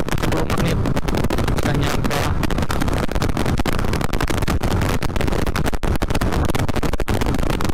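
Yamaha Vixion's 150 cc single-cylinder four-stroke engine running steadily at cruising speed, heard from on board the moving motorcycle with wind and road noise.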